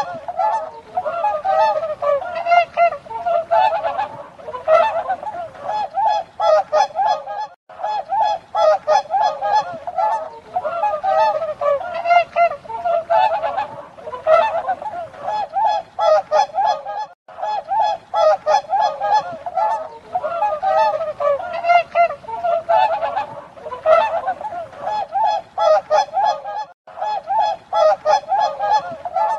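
Swans honking: many short honking calls in quick, overlapping succession, broken by brief pauses about every ten seconds.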